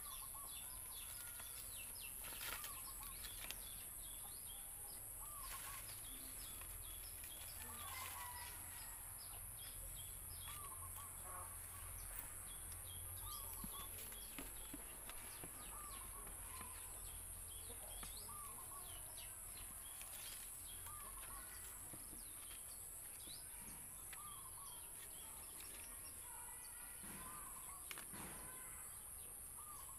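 Outdoor ambience: birds chirping, with a short call repeated every second or two, over a steady high-pitched insect drone.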